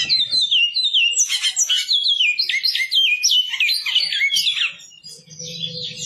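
Great-billed seed-finch (bicudo) singing a fast run of clear whistled notes that step up and down in quick succession. The song stops after about four and a half seconds.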